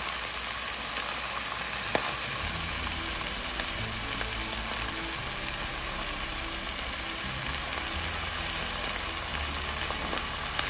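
A thin beef steak, seasoned with salt, sizzling steadily in a nonstick frying pan, with an occasional small pop. It is cooking on its first side, not yet turned.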